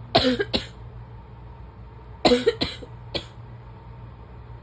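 A person's barking asthma cough on waking: two harsh coughs at the start, then a fit of three or four more about two seconds in.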